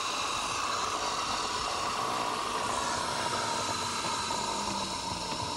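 Fast air jet from a blower hose rushing out through a funnel: a steady rushing hiss. The airflow is holding a light ball up inside the upturned funnel.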